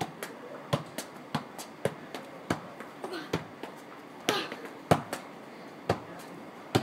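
Football being kicked during keepy-ups: a string of irregular thuds as the ball hits the foot and drops onto paving slabs.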